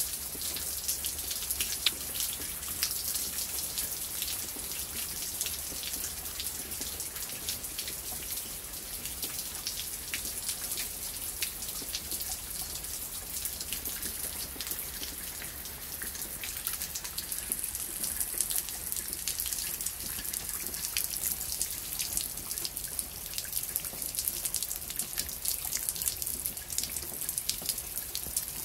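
Heavy rain falling steadily on tree leaves and concrete paving stones: a dense, even hiss dotted with many sharp little drop impacts.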